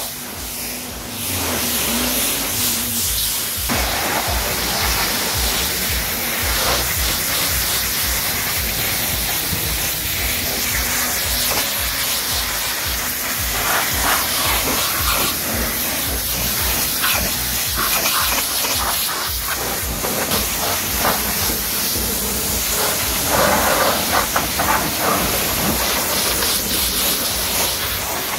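High-pressure washer spraying water onto a car's painted panels and windows: a steady hissing spray that dips briefly about a second in.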